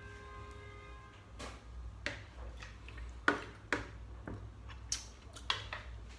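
A metal spoon clinking and scraping against a plastic basin while stirring a liquid marinade: a few irregular sharp clicks, the sharpest about three seconds in.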